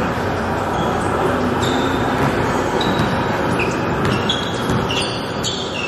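Basketball sneakers squeaking on an indoor court floor while a basketball is dribbled, with a run of short high squeaks in the second half.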